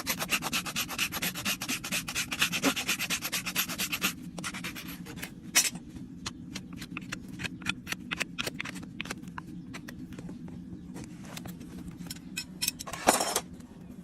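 Farrier's rasp scraping a horse's hoof: quick, even strokes for about four seconds, then sparser, lighter strokes, with one louder scrape near the end.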